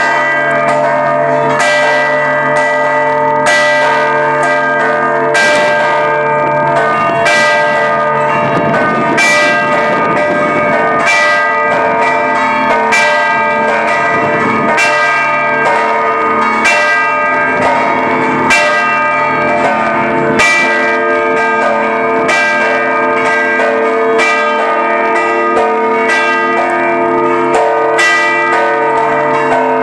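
Church bells ringing a festive peal for a procession: several bells struck in quick, continuous succession, their tones ringing on and overlapping.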